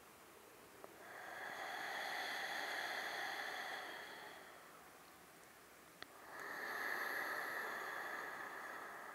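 A woman's slow, deep breathing during pranayama: a long exhale beginning about a second in, then after a short pause a long inhale, each breath lasting about three seconds.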